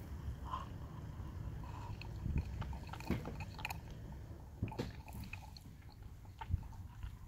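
Capuchin monkey drinking from a plastic bottle: small wet mouth and swallowing sounds with scattered light clicks.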